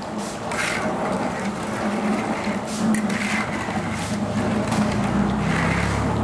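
Metal spatula stirring and scraping through thin sauce in a large aluminium wok, with a few separate scraping strokes over a steady low hum; a low rumble builds near the end.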